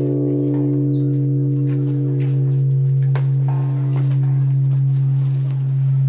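Large bronze Japanese temple bell (bonshō) ringing on after a single strike: a deep, steady hum with a slow waver in loudness, its higher overtones fading while the low tone stays strong.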